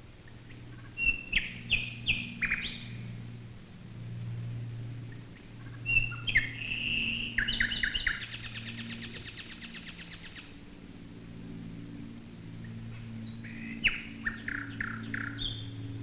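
Common nightingale singing in three bursts of song, the middle one running into a long fast trill of repeated notes. Beneath it is a low steady drone of bomber engines passing overhead.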